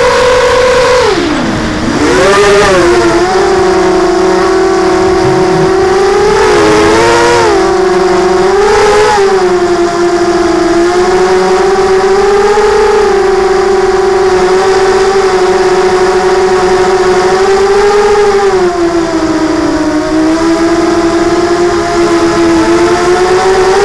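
Brushless motors and propellers of a ZMR250 FPV quadcopter (DYS 1806 motors, Gemfan 5040 props) whining, recorded on board. The pitch drops sharply about a second in and then surges back up several times as the throttle changes. It sags again late on and climbs back near the end.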